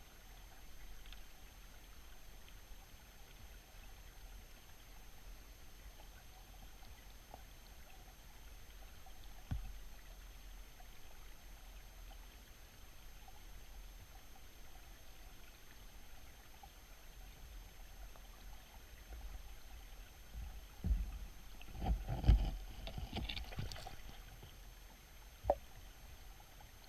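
Faint steady flow of a creek, with a few low thumps and knocks, a louder cluster of them about three-quarters of the way through and one sharp knock soon after.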